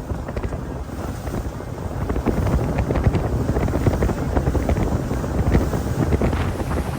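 Wind buffeting the microphone on an open boat, with noise from the boat on the water, growing louder about two seconds in.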